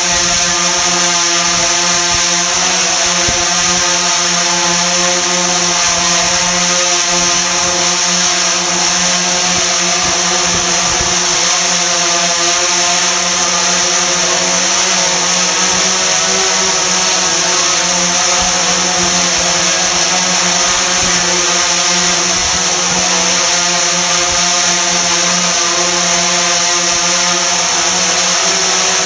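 DJI Phantom 3 Professional quadcopter hovering a little above the floor: its four propellers make a steady buzz of several fixed pitches over a hiss, holding level throughout.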